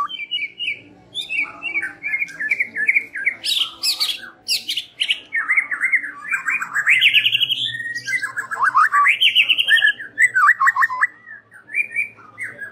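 White-rumped shama singing: a fast, varied song of rapid trills and rising and falling whistled sweeps, phrase after phrase with only brief pauses.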